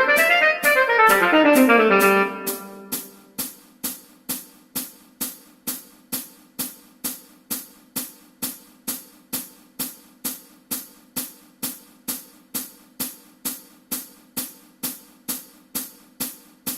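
Instrumental music: a full passage with gliding pitched lines for about two seconds, then it drops to a steady ticking beat, about two ticks a second, over a faint low held note, which stops at the very end.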